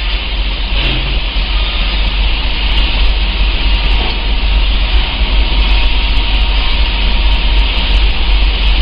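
Steady machine-like running noise: a strong low rumble with a hiss above it.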